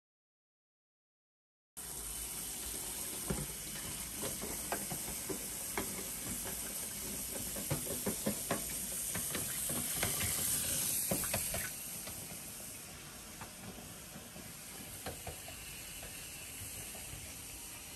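After a brief silence, a kitchen tap runs water into a sink, with a string of light knocks and clicks over the running water; the water eases off about twelve seconds in.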